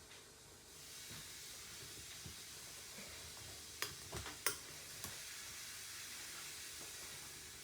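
Faint steady hiss, like sizzling, with a few sharp clicks and knocks a little after halfway.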